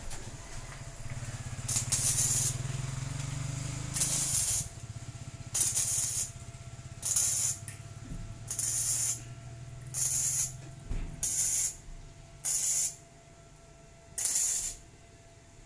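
Gasless (flux-core) MIG welder laying a series of short tack welds: about nine bursts of crackling sizzle, each under a second, with short pauses between. A low hum runs underneath until about eleven seconds in.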